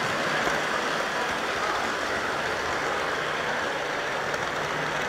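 Steady rolling whir and rumble of an HO scale model train's wheels and motor running along the track, picked up by a camera riding on the train.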